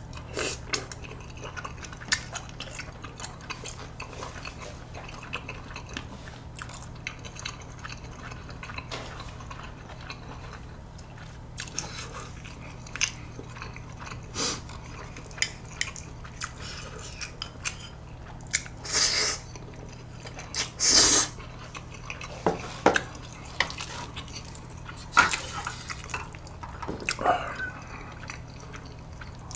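Close-miked eating of spicy stir-fried noodles: chewing and biting, with chopsticks clicking against a bowl and a metal pan. The clicks are scattered throughout, and a couple of louder, longer bursts come about two-thirds of the way in.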